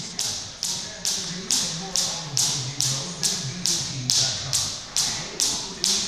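Jump rope skipping at a steady pace: the rope swishes round and slaps the wooden floor a little over twice a second, each stroke sharp and quickly fading.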